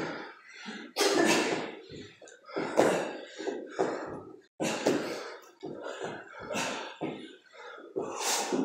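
Several people breathing hard from exertion: short, forceful huffing exhalations, about one every half second to a second.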